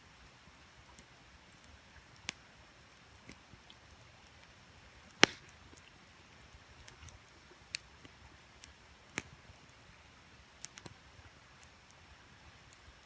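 Wood campfire crackling: irregular sharp pops and snaps at uneven intervals, the loudest about five seconds in. Under them runs a faint steady rush of the creek flowing.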